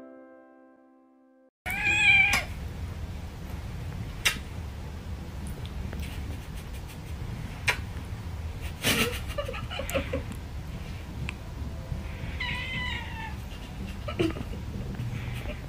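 Domestic cat meowing: one meow about two seconds in and a second, wavering meow near the end, over a steady low hum with a few soft clicks. The fading end of piano music comes first.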